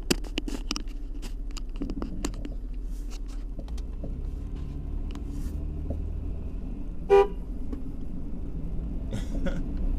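Steady low engine and road rumble of a moving car, with a few light clicks in the first two seconds. About seven seconds in comes a single short car-horn toot.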